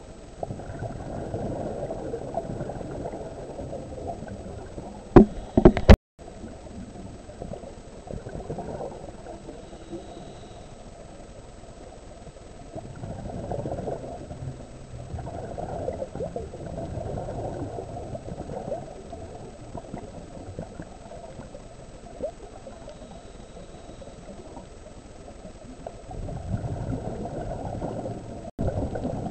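Underwater sound through a camera housing: a scuba diver's exhaled bubbles rumbling and gurgling in long surges, quieter in between. A cluster of loud sharp clicks comes about five seconds in.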